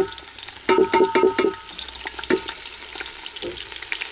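Sliced onions frying in hot cooking oil in an aluminium pot with a steady sizzle. A knock comes at the start, then a quick cluster of ringing clinks about a second in and one more knock near the middle, as the plate is knocked against the pot.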